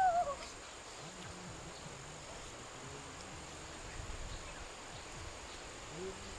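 Insects droning steadily with a constant thin high hum. At the very start a chicken gives one short, wavering squawk that falls in pitch and fades within half a second.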